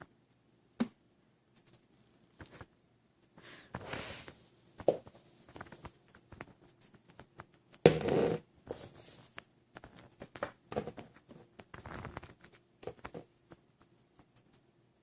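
A cat swatting and pawing at a vacuum cleaner that is switched off: scattered light taps and rustles, with a louder brief scuffle about eight seconds in.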